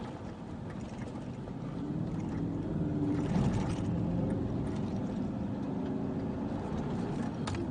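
Vehicle driving on a gravel road, heard from inside the cabin: steady tyre and road noise with the engine note rising about two seconds in as it accelerates.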